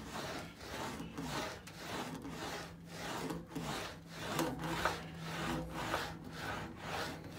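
Sheet aluminium rolled back and forth through an English wheel, a rhythmic rubbing swish about twice a second, one for each pass. The panel is being wheeled under light pressure to raise and feather out a compound curve.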